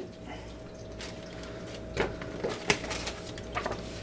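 Paper handling in a shoe box: a few short crinkles and rustles of a paper leaflet and tissue paper in the second half, over a faint steady hum.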